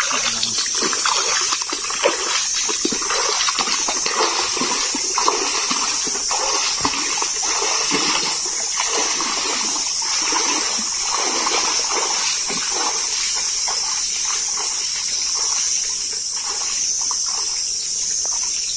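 A person wading through a shallow stream, water splashing unevenly with each stride, fainter in the last few seconds. Under it runs a steady high-pitched insect buzz.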